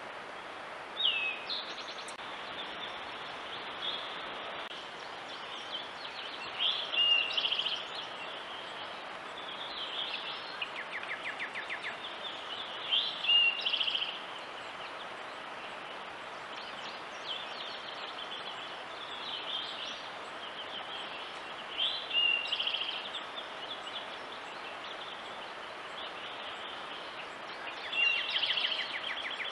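Wild songbirds singing short phrases every few seconds over a steady hiss.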